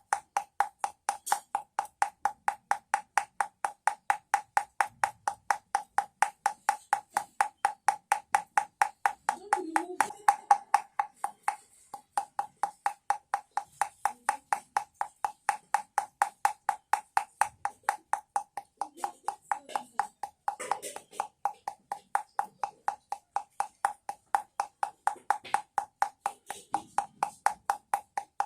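Baby rattle clicking in a very even rhythm, about three sharp clicks a second, each with a short ringing note.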